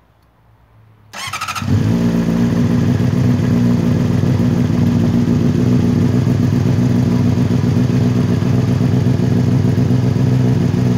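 Honda CBR600RR's inline-four engine being started: the electric starter cranks for about half a second, a little over a second in. The engine then catches and settles into a steady idle.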